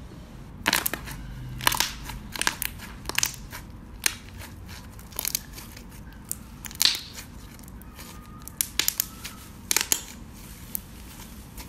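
Blue slime being squeezed and kneaded by hand, giving irregular sharp crackling pops as air bubbles in it burst.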